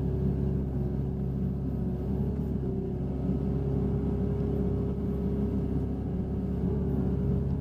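Hitachi Zaxis 60 USB mini excavator's diesel engine running steadily under working load while the bucket digs and dumps, heard from inside the cab, with a steady whine on top that wavers slightly in pitch now and then.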